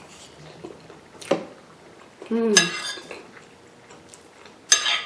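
Metal fork clinking and scraping against a ceramic plate as rice is scooped up, with sharp clicks a little over a second in and near the end. A short vocal sound comes about two and a half seconds in.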